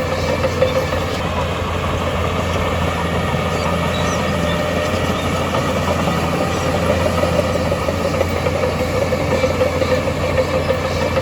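Diesel engine of heavy earthmoving equipment running steadily, a constant low drone with an even mechanical noise over it.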